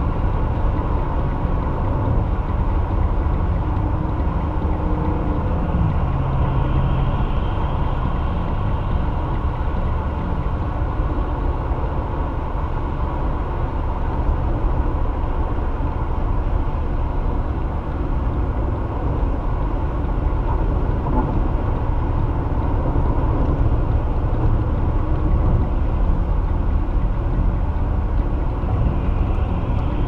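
A car driving on the interstate: a steady low rumble of road and tyre noise, with no sharp events.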